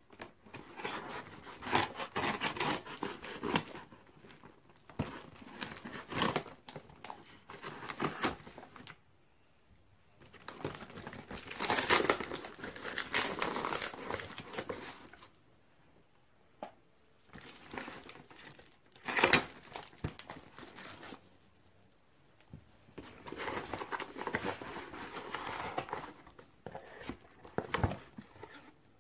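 A plastic courier mailer being slit with a knife and torn open, then the cardboard box under it ripped open and the packaging crinkled. It comes in irregular bursts with short pauses between them, the loudest a single sharp stroke about two-thirds of the way in.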